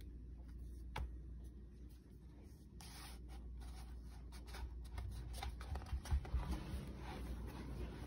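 Heavy cardstock pages of a handmade scrapbook album being turned and handled: scattered soft clicks and short paper rustles, busiest around the middle, over a steady low hum.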